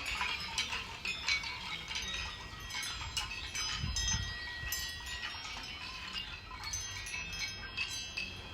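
Many small chime-like strikes, clinking and ringing out in thin bright tones, overlapping irregularly.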